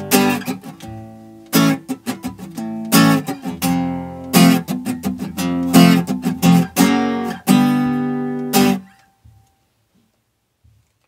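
Acoustic guitar strummed in full chords, a steady strumming pattern with heavier strokes about every second and a half. The playing stops abruptly about nine seconds in, leaving near silence.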